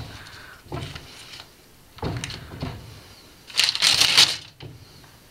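Wooden glass-paned sliding door rattling and knocking in three bursts as a baby slaps and shakes it; the last burst, near the end, is the loudest.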